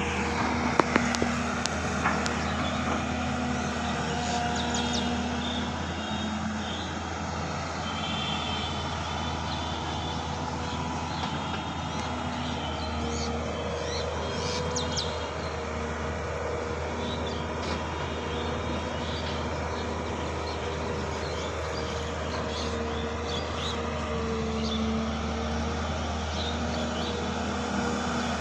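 Diesel engine of a Link-Belt LS-3400 long-reach excavator running steadily while it digs, its note shifting a little as the boom and bucket are worked. A few sharp clanks about a second in.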